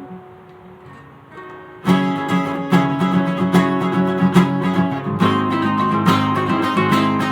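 Acoustic guitar music. A chord rings and fades for the first couple of seconds, then the playing picks up again with a steady run of plucked or strummed notes.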